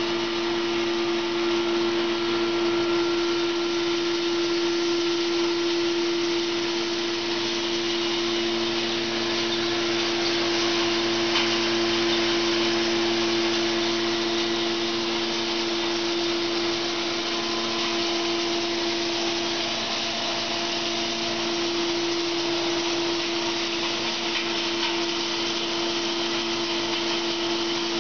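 Wood hammer mill running at speed: a steady whirring hum with a constant hiss, as wood chips are fed into its hopper and crushed into sawdust.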